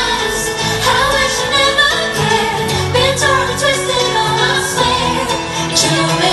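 Live pop song: a woman sings lead over a full band, recorded from the concert audience.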